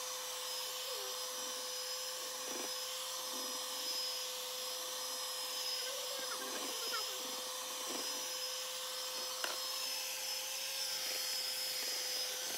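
Hamilton Beach electric hand mixer running steadily at medium speed, its beaters whirring through cake batter with a steady motor whine.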